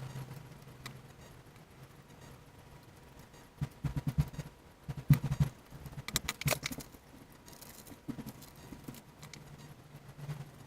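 Small hard parts clicking and rattling as they are handled, in a cluster of sharp clicks from about three and a half seconds in to about seven seconds, over a faint low steady hum.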